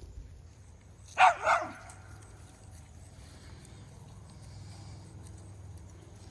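A dog barking twice in quick succession, about a second in.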